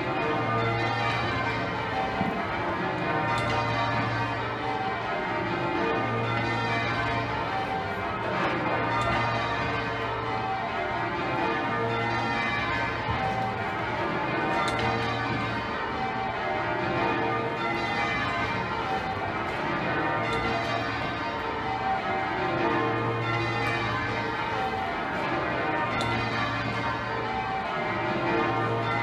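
Change ringing on Exeter Cathedral's ring of twelve heavy bells (72 cwt tenor), the bells striking one after another in a continuous, shifting sequence, with a deep low note recurring about every two seconds.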